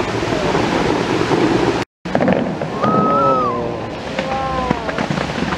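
Bellagio fountain jets spraying water, a steady rushing hiss. It cuts out abruptly for a moment about two seconds in, then the water sound comes back with high gliding pitched sounds over it.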